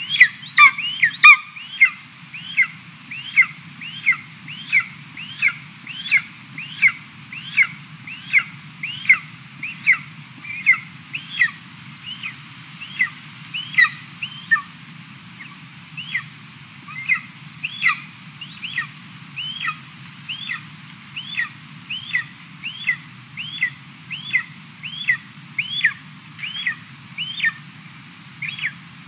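Golden eaglet giving a long run of thin, downward-sliding begging calls, about three every two seconds, as it is fed by a parent. A steady low hum runs underneath.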